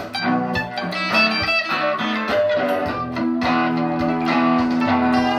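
Guitar playing a blues lick: a quick run of single plucked notes, then held notes ringing on from about three seconds in.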